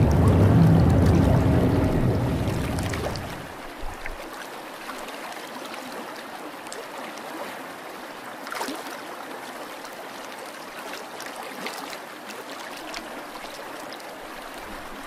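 Water trickling with small scattered clicks and pops around a sinking cardboard model ship. A louder low rumble under it fades out about three and a half seconds in.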